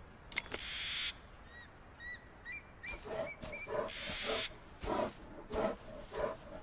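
Wild animal sounds: a few short chirping calls, then a run of short, evenly repeated low calls or breaths, about one every half second to second.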